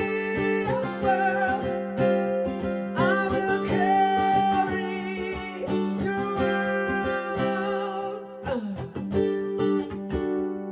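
Ukulele strummed with sung vocals of an original song, amplified through a Bose S1 Pro+ portable PA speaker.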